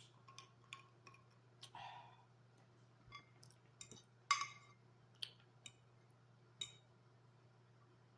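Close-up eating sounds while chewing spaghetti: scattered wet mouth clicks and smacks at irregular intervals, the loudest a little past the middle.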